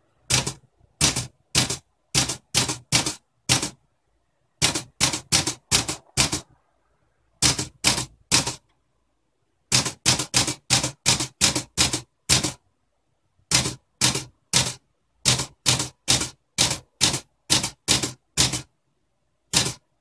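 UNIS tbm de Luxe manual portable typewriter being typed on: sharp individual key strikes as the typebars hit the paper on the platen, in irregular runs of a few strokes with short pauses between.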